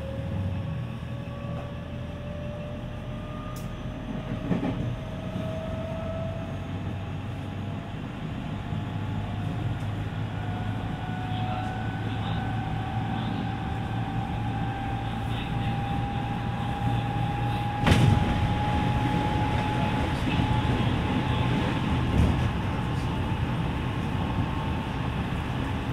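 Running sound of a JR West 207 series electric train heard from inside the car: the early VVVF inverter and traction motors whine in a tone that rises slowly and steadily as the train gathers speed, over the rumble of wheels on rail. A single sharp clack comes about eighteen seconds in.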